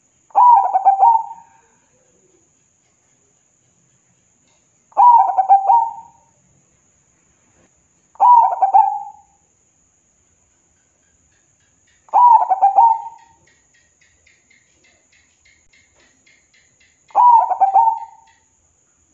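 Zebra dove (perkutut) singing: five short phrases of rapid, stuttering coos, each about a second long and a few seconds apart. Between the fourth and fifth phrase a faint run of quick high chirps is heard.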